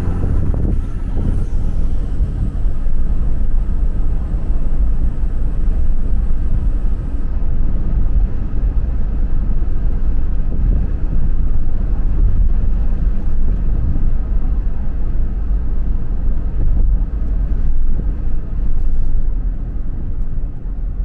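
Steady low rumble of a car being driven, heard from inside the cabin: tyre and engine noise.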